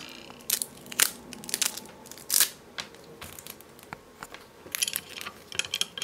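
Irregular clicks and short scrapes of hard objects handled on a metal surface: multimeter probe tips and a small circuit board being moved around in a metal board holder.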